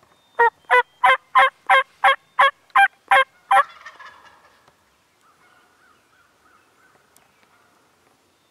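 Turkey yelping: a run of about ten loud, evenly spaced yelps, roughly three a second, ending about three and a half seconds in.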